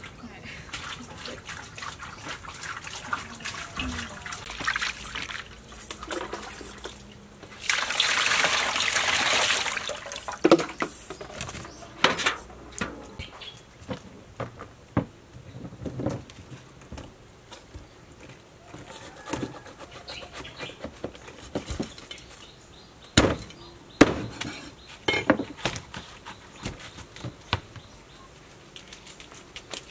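Snakehead fish being washed in a steel bowl of water, splashing, with a rush of water about eight seconds in. Then a knife cuts the fish on a wooden board in scattered sharp knocks.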